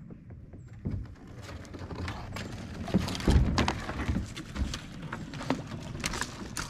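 Footsteps scrambling through dry fallen leaves and brush: irregular crunching with sharp twig cracks and knocks.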